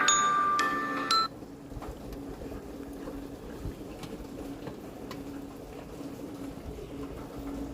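Samsung Galaxy A52 ringtone, a chiming, glockenspiel-like melody from the phone's speaker, cutting off suddenly about a second in. It is followed by faint room background with a steady low hum and a few light ticks.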